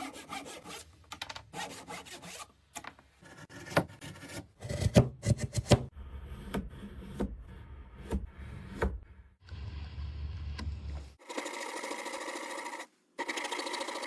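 Waste wood being removed from a bridle joint with hand tools: irregular sharp knocks and scraping of tool on wood. After about eleven seconds a steady, even machine sound takes over, with a short break about two seconds later.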